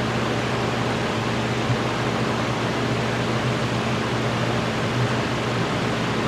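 Steady hiss with a low electrical hum underneath, and no other distinct sound.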